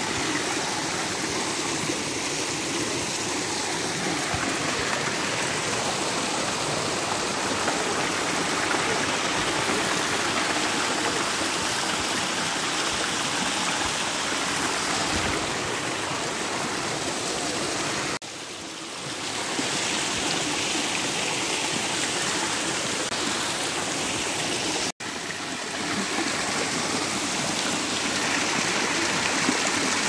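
Water from a small waterfall splashing over rocks into a pool: a steady rush of flowing water. It dips briefly past the middle and cuts out for an instant later on.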